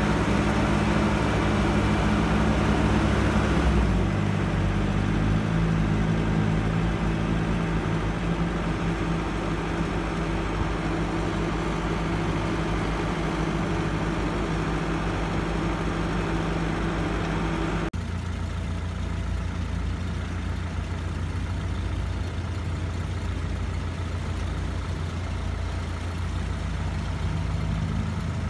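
Heavy diesel engines of a Caterpillar E315B hydraulic excavator and a six-wheel dump truck running steadily. The sound eases a little about four seconds in, then changes abruptly about two-thirds of the way through to a lower, steadier hum.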